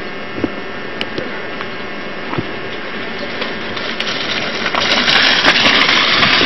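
A mountain bike coming down a loose dirt slope close by, its tyres sliding and scraping on the earth: a rough hiss that swells sharply over the last two seconds, with sharp clicks on top, over a steady background hiss.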